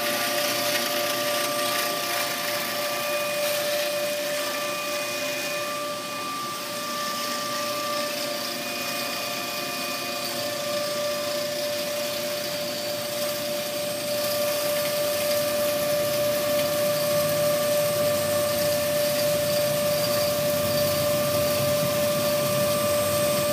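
JMT DCB-M 560 double-column band saw running and cutting through an 18-inch metal pipe: a steady whine over an even machining noise, growing a little louder about halfway through.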